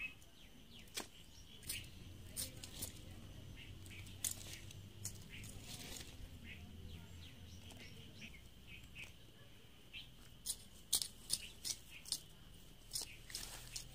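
Small hand hoe striking and scraping through garden soil while weeding, a run of faint, irregular clicks and scrapes that come quicker near the end, over a steady high hum.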